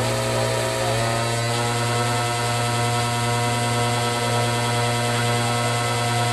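Live electric band holding a sustained drone with no drums: guitar and keyboard tones ringing steadily over a constant low hum, with a few sliding pitch bends in the first second or so.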